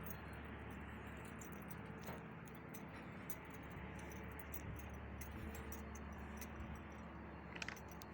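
Steady low machinery hum with faint scattered ticks and clicks, and a brief higher scrape or rattle near the end.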